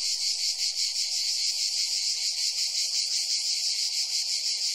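A steady, high-pitched chorus of chirping insects.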